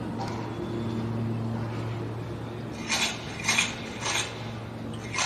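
Steady low drone of an Airbus A330-300 airliner's jet engines on final approach. Four short clinks sound over it between about three and five seconds in.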